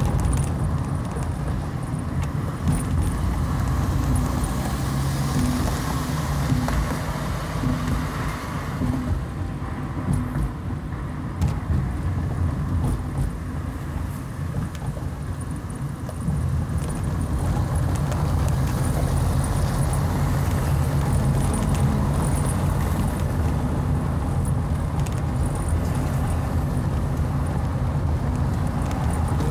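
Inside a moving car: steady low rumble of engine and tyres on rough, partly cobbled road, with frequent small rattles, getting a little louder about halfway through.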